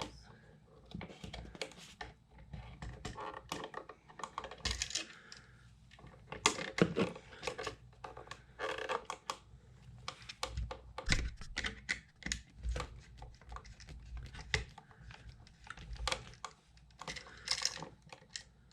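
Irregular light clicks, taps and rustles of hands, stiff copper wires and a tool working on a new USB wall outlet at close range, with a few louder knocks.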